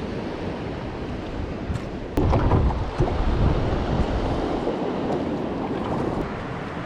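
Wind and sea water: a steady rush of wind on the microphone over moving water. It grows louder and heavier in the low end about two seconds in, then eases back near the end.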